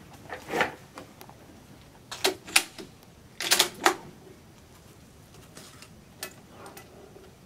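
Bolt action of a Krag rifle in .30-40 Krag being handled: a series of short metallic clicks and clacks, loudest in a cluster about three and a half seconds in, with a single click about six seconds in.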